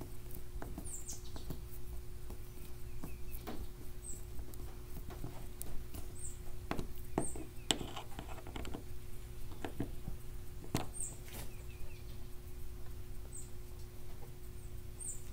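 Screws being driven by hand with a screwdriver into a plastic cleat mount on a kayak hull: scattered small clicks and scrapes of the metal driver against the plastic, with faint short high chirps every second or two over a steady low hum.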